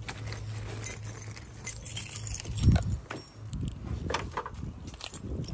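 Irregular light metallic clinking and rattling, with a few duller knocks, over a steady low hum.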